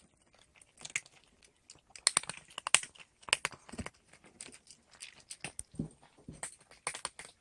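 A pet crunching dry food, in irregular sharp crunches and clicks.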